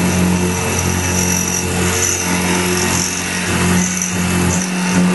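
X2 benchtop milling machine running, its end mill cutting aluminium: a steady motor hum under a high cutting whine that comes and goes. The lower hum drops away near the end.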